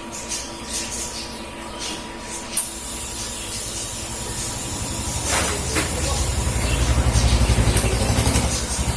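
TIG welding on aluminium: a hiss starts suddenly about two and a half seconds in, and a low, pulsing buzz builds up from about halfway through and grows louder.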